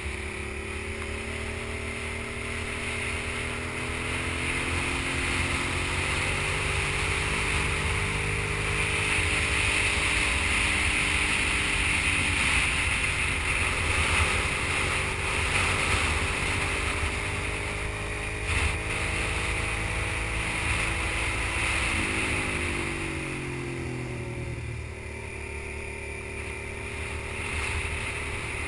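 Sport motorcycle engine running through a run of curves, its pitch rising and falling with the throttle over steady wind noise on the bike-mounted microphone. The engine pitch drops sharply about three quarters of the way through as the rider rolls off for a bend.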